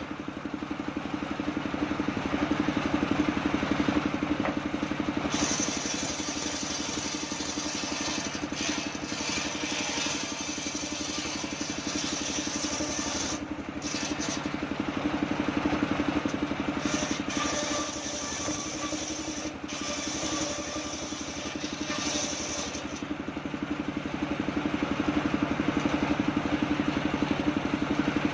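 Engine-driven homemade table circular saw running steadily while ripping coconut-palm wood into boards: a constant engine drone with the blade's cutting noise over it, getting louder near the end.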